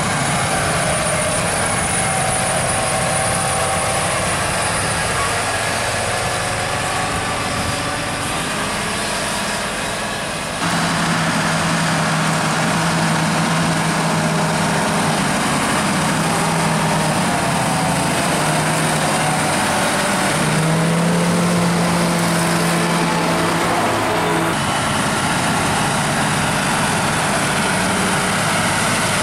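John Deere 8R-series tractors, with six-cylinder diesel engines, running under load as they pull reversible ploughs through the soil. The engine hum is steady, and the sound changes abruptly about ten seconds in and again near the end.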